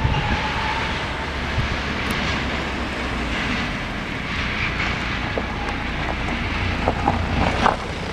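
Freight train rolling through a yard: a steady low rumble of engine and wheels, with a few sharp clicks near the end, like wheels running over rail joints or points.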